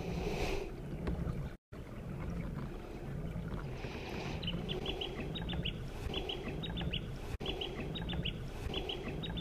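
Birds calling in repeated bursts of short, high chirps, starting about four seconds in, over a low, rhythmic rumble from the pedal-driven kayak moving on calm water.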